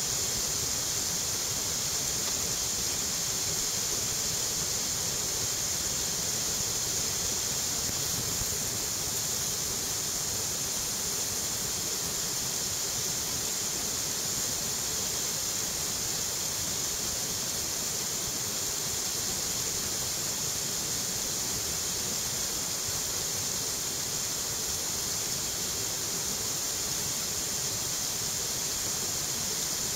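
Steady rush of river water pouring over a weir and churning into white water below it.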